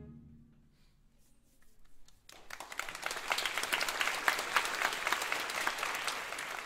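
The wind band's final chord dies away in the hall's reverberation. About two seconds in, the audience breaks into dense, steady applause, which begins to fade near the end.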